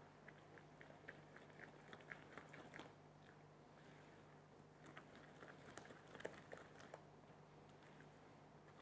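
Faint wet clicks and squelches of thick cake batter being stirred and folded in a bowl, in two spells of a few seconds each, over a low steady hum.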